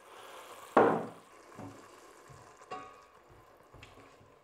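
Mulled wine poured into a hot stainless-steel pot hisses sharply about a second in as it deglazes the pan, then settles to a quiet sizzle while a spoon stirs, with a couple of light knocks against the pot.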